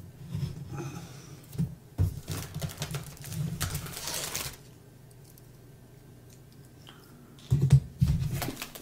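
Plastic shrink-wrap on a cardboard box being slit and peeled off: small clicks and scratches of the blade and fingers on the film, a louder crinkling rustle about three and a half seconds in, then a brief lull, and crinkling and handling of the loose plastic near the end.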